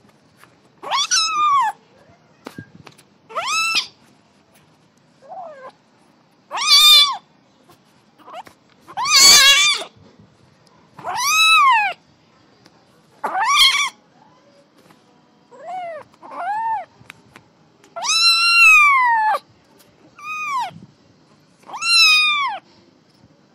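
A kitten meowing repeatedly: about a dozen high-pitched meows, each rising then falling in pitch, a second or two apart. One near the middle is louder and rougher than the rest, and one later on is drawn out longer.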